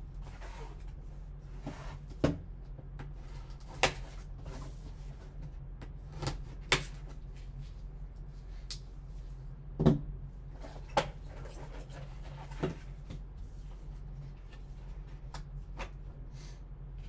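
Gloved hands opening a cardboard trading-card box: about seven sharp, irregularly spaced taps and knocks of cardboard and a card holder being handled as the box is opened to show its foam insert, over a steady low hum.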